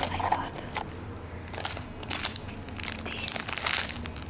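Clear plastic packaging crinkling and crackling as it is handled, in irregular bursts that grow busiest near the end.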